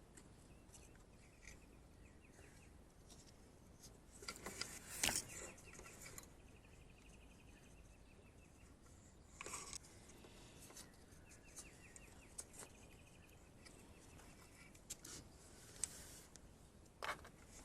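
Near silence with a few faint clicks and rustles of hands handling a small plastic connector, the loudest about five seconds in. Faint rapid chirping trills come and go in the background.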